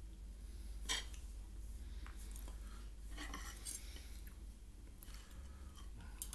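Cutlery scraping and clinking on a plate while food is cut up and picked up, a few short strokes about a second in, around three seconds in and near the end.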